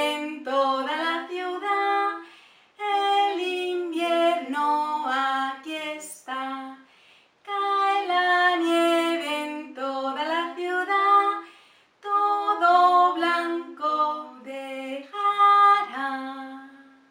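A woman singing a children's song unaccompanied, in four phrases with short pauses between them.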